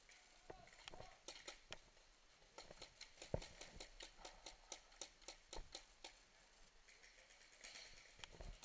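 Paintball markers firing: a rapid string of faint pops, about three a second, with one louder pop about three and a half seconds in.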